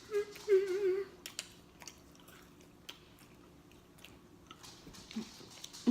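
Close-miked mouth sounds of someone eating pizza: a brief wavering hummed "mmm" at the start, then scattered wet chewing and lip smacks.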